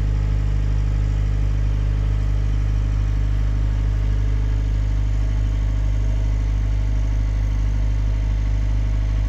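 Motor cruiser's engine running steadily under way, an even low drone heard from inside the wheelhouse.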